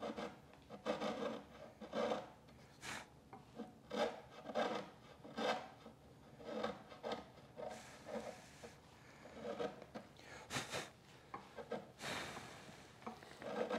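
Bench chisel paring the floor of a butt-hinge mortise in northern white pine by hand: a run of short scraping cuts, about one a second.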